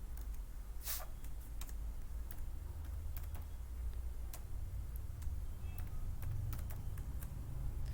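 Computer keys clicked one at a time at an irregular pace, over a low steady hum.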